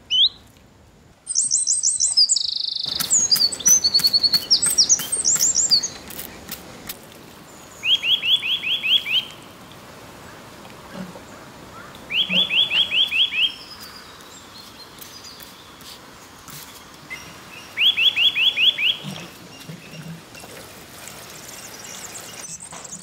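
Birds singing: a flurry of varied chirps over the first few seconds, then one bird repeating a short, fast run of about six similar notes three times, several seconds apart.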